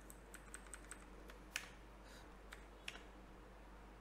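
Faint computer keyboard keystrokes: a quick run of about five key presses a second at first, then a few single, slightly louder presses, as selected code is deleted in an editor.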